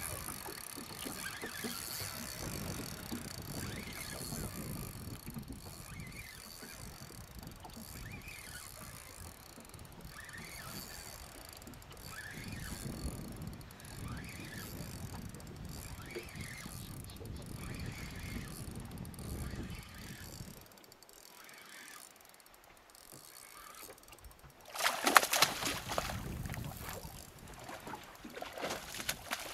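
Wind and water noise around a small boat while a hooked barramundi is fought on rod and reel. About 25 seconds in comes a loud splashing burst lasting a couple of seconds: the fish thrashing at the surface beside the boat.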